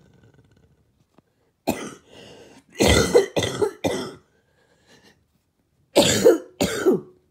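A person coughing in harsh bursts: one cough, then three in quick succession, then two more near the end, with a faint wheezy whistle on a breath between them.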